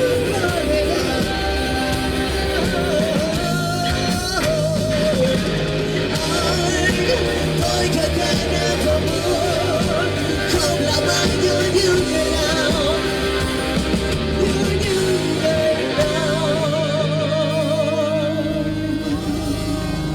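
Rock music playing, with a lead line wavering in vibrato over the full band.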